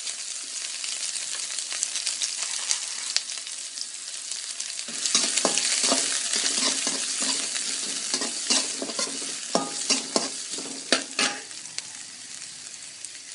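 Onions frying and sizzling in hot oil with tempered mustard seeds and curry leaves. From about five seconds in, a ladle scrapes and knocks against the pan for about six seconds as the onions are stirred.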